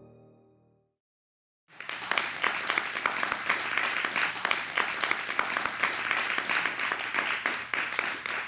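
An audience applauding, starting abruptly about two seconds in and carrying on steadily. Before it, the end of an orchestral theme fades out into a moment of silence.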